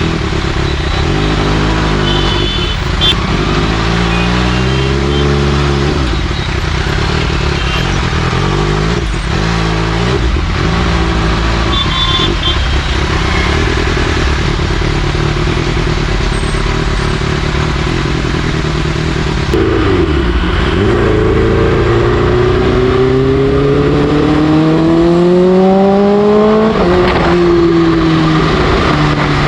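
Kawasaki H2's supercharged inline-four running through an SC Project exhaust, picked up by a helmet or bike-mounted GoPro mic. The revs stay low with short throttle blips at first. About twenty seconds in they make one long steady climb, drop at a gear change, and start climbing again near the end.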